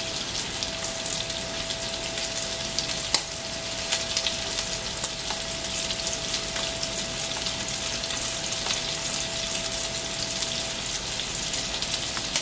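Chuck roast steaks searing in hot butter and olive oil in a stainless steel pan: a steady sizzle with scattered crackles and pops.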